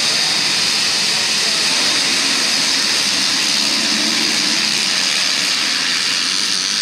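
A full pack of motocross bikes running at high revs together as the field launches off the start line, a dense, steady wall of engine noise with no let-up.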